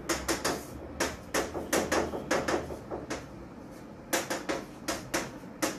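Chalk on a chalkboard while writing: a run of quick, irregular taps and short scrapes, with a pause of about a second near the middle.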